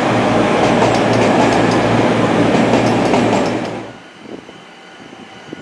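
Class 222 Meridian diesel multiple unit passing close by: a loud, steady rumble of engines and wheels with faint regular wheel clicks. It drops away suddenly near the end to a much quieter background.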